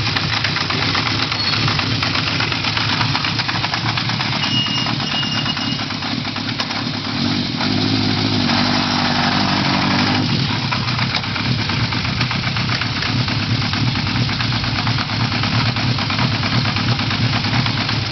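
Honda CB1100F's air-cooled inline-four engine running at idle with a dense mechanical clatter, the abnormal engine noise being documented; the engine note shifts briefly about halfway through.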